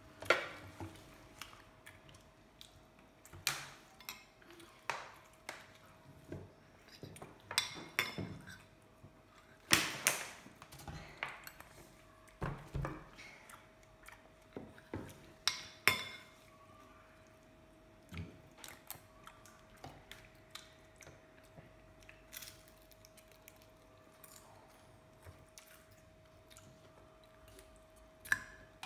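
A spoon clinking against a ceramic bowl as dishes are handled on the table, in scattered sharp clicks and clinks that are busiest in the first half and sparse later. A faint steady hum runs underneath.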